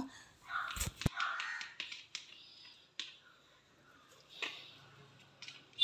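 Metal spoon pressing and smoothing thick banana halwa in a plastic bowl: soft scrapes and a few sharp clicks as the spoon knocks the bowl, with a low thump about a second in.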